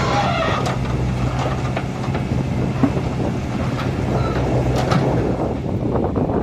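An engine running steadily with a low hum, over a rough noisy background with scattered sharp knocks. The hum drops away about five seconds in.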